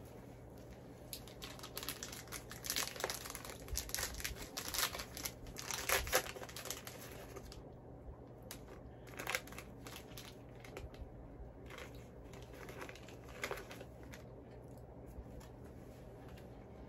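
A plastic snack packet crinkling and rustling as it is opened and handled: a dense run of crackles for the first several seconds, then only a few now and then.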